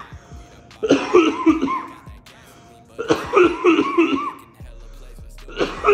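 A man coughing hard on blunt smoke, in three loud fits of several hacking coughs each, about two seconds apart.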